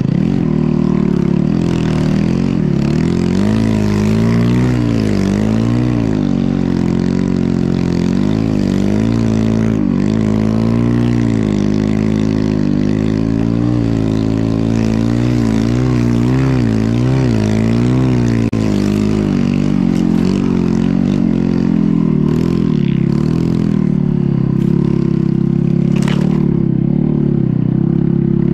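Snow bike's dirt-bike engine running under load, its pitch rising and falling repeatedly with throttle for the first two-thirds, then holding steadier. There is a sharp knock near the end.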